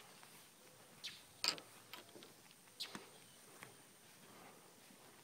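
Quiet outdoor background with a thin steady high tone and about five faint, sharp, scattered clicks.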